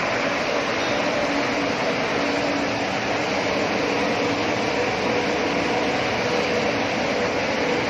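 Dog food production line machinery running steadily: an even, loud mechanical noise with a faint low hum.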